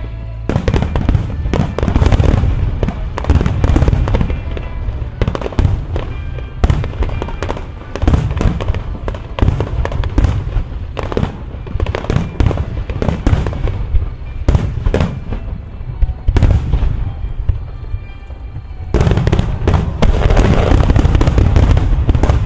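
Aerial fireworks shells bursting in rapid, overlapping bangs, with a music soundtrack playing underneath. From about nineteen seconds in, the bursts merge into a dense, continuous volley.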